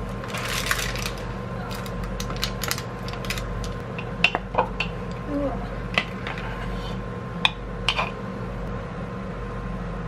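A metal spoon scraping and clinking against a plastic container as cooked brown rice is spooned out, giving a scrape and then a dozen or so sharp separate clinks. A steady low hum runs underneath.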